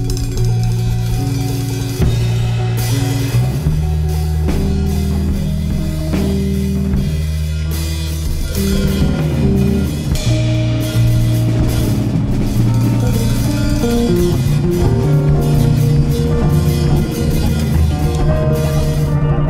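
Rock band music: a full drum kit with bass drum and snare driving a steady beat under bass and guitar, the bass notes changing every second or so.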